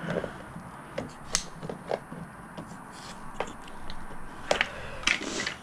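Large shears snipping and clicking as they cut through a thin black plastic plant pot: a handful of separate sharp snips, the loudest about a second and a half in and again about four and a half seconds in.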